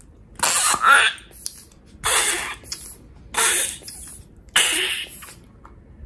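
Naughty Noisy Animals pig toy: a hand squeeze-bulb pump forcing air through the slime, giving four fart-like squelching bursts about a second apart.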